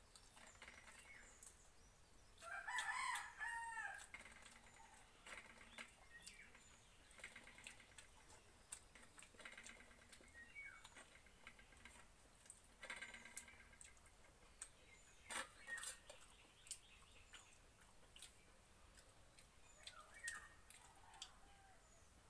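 A rooster crows once, loudly, about three seconds in, with weaker bird calls later. Between them there are faint, scattered clicks from eating by hand.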